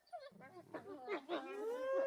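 Several wolves howling together: short wavering yips and howls overlap, and about a second and a half in one long howl rises and then holds a steady pitch.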